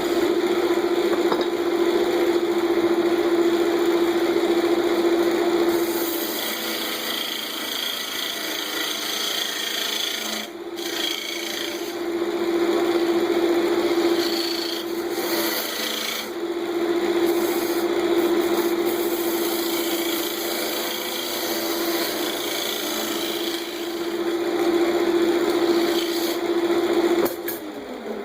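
Central Machinery wood lathe running with a steady motor hum while a turning tool scrapes into the spinning wood, cutting a mortise; the scraping rises and falls as the tool bites. The lathe shuts off near the end.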